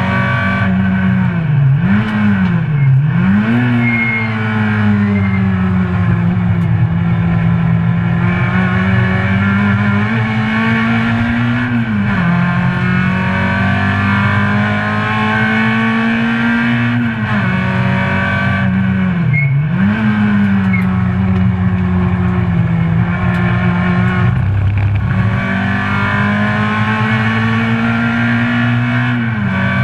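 Citroen C2 GT track car's tuned four-cylinder engine on Newman cams, heard from inside the cabin at full throttle. The engine note climbs slowly through the revs, then falls sharply several times as the driver lifts off and changes gear, with a quick dip-and-rise on a couple of downshifts.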